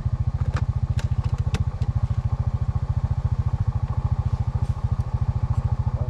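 A small engine running at a steady idle, its exhaust pulsing evenly and fast, with a few light clicks over it.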